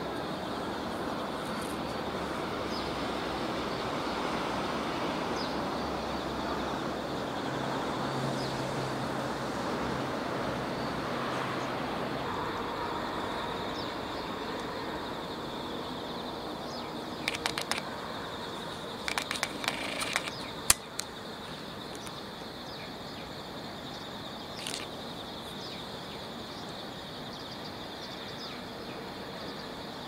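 Outdoor ambience: a steady rushing background with a thin high tone running through it. A few quick clusters of sharp clicks come a little past halfway.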